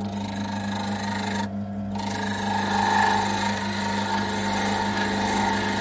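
Wood lathe running with a steady hum while a hand-held turning tool cuts into the spinning wooden blank, hollowing out its inside. The cutting noise stops briefly about one and a half seconds in, then starts again.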